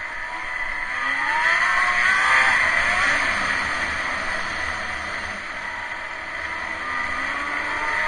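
Snowmobile engine running under way, its note rising and falling as the throttle is worked, climbing about a second in and again near the end. Heard from on board through a waterproof camera case, which keeps wind noise down.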